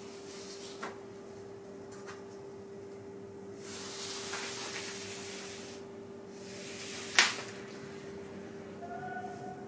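Charcoal scraping across a large sheet of paper as a wide arc is drawn: a dry hiss that swells about four seconds in and lasts about two seconds. One sharp knock comes about seven seconds in, over a steady low hum.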